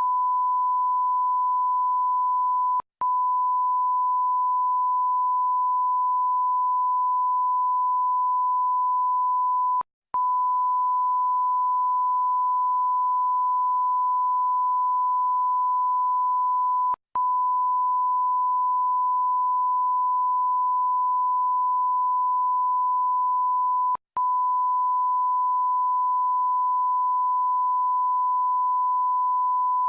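Censor bleep: one steady pure tone held at a constant pitch, broken by very short gaps four times, about every seven seconds.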